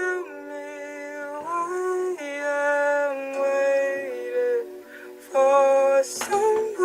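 Background music: held chords that change about every second.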